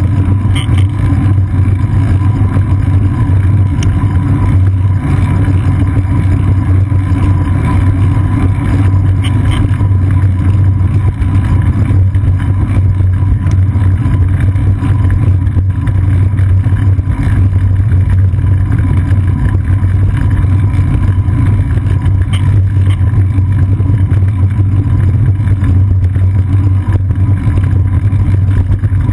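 Steady low rumble of wind buffeting and road vibration on a GoPro Hero 2 mounted on a moving bicycle's seat post, with a thin steady tone running under it.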